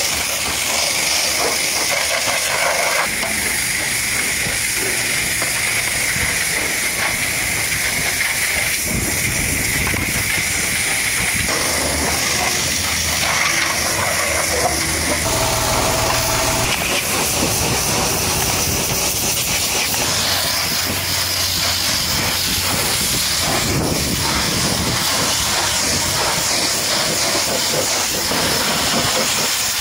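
High-pressure washer jet spraying water onto muddy truck tires and wheels: a steady, loud hiss of spray that shifts abruptly in tone a few times.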